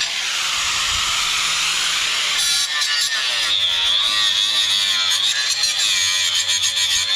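Electric power tool running and cutting into pallet wood: a dense steady hiss with a low hum, joined by a steady high whine about two and a half seconds in.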